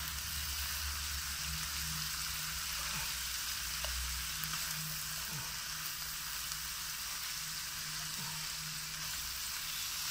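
Stir-fry noodles, cabbage, carrots and meat sizzling steadily in a hot non-stick pan as they are tossed and stirred with a spatula, with a few faint scrapes of the spatula against the pan.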